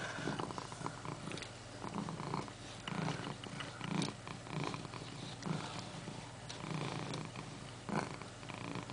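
Domestic cat purring in steady cycles, swelling about once a second with each breath, with a few sharp clicks.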